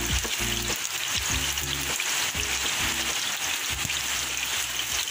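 Battered banana slices frying in hot oil in a steel wok, a steady sizzling hiss, with soft background music underneath.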